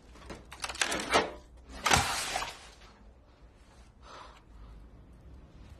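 Goods being handled on a metal store shelf: a rustle and clatter about a second in, then a louder knock and rattle around two seconds in, and a faint rustle later.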